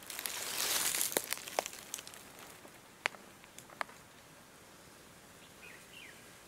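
Rustling followed by several sharp light clicks as hands work at a bamboo stingless-bee nest, cutting away its waxy trumpet-shaped entrance tube.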